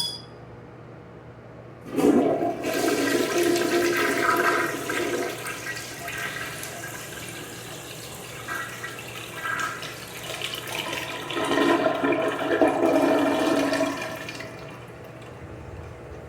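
Mansfield Imperial toilet flushing: a short click at the start, then water rushes into the bowl about two seconds in, surges a second time and fades off near the end.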